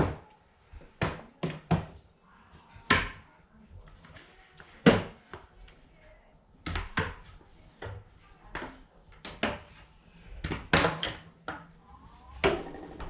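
A string of irregular knocks and clunks of hard household objects being handled and set down while cleaning up a home, the loudest about five seconds in.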